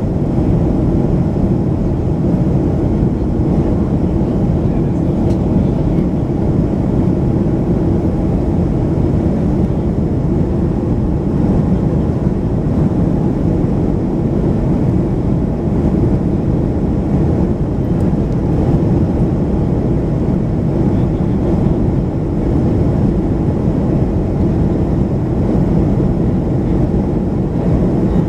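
Steady cabin noise inside a Boeing 737-500 in flight: the low, even drone of its CFM56-3 turbofan engines and the airflow over the fuselage, heard from a window seat over the wing.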